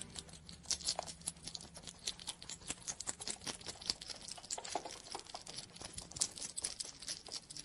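Hedgehog foraging in grass, snuffling and rustling: a fairly faint, rapid, irregular run of small clicks and crackles.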